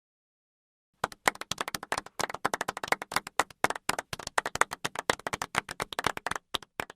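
Golf clap from a crowd: many people clapping politely, starting about a second in as a quick patter of sharp claps that stops abruptly near the end.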